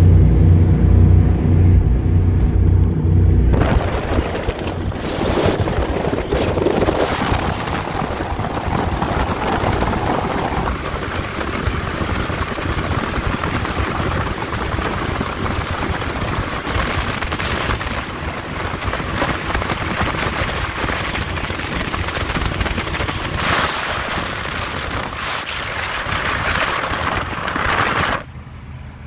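Fountain 42 Lightning powerboat running across open water. A steady low engine drone for the first few seconds gives way to loud wind and water rush at speed that covers the engine, then the level drops sharply shortly before the end.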